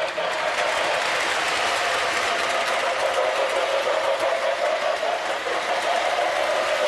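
O-27 three-rail toy train running on the layout track: a steady motor whine with wheel-on-rail rumble.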